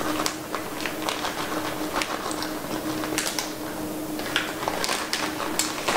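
Plastic bag of shredded cheese crinkling and rustling as the cheese is shaken out, with irregular small clicks and crackles. A steady hum runs underneath.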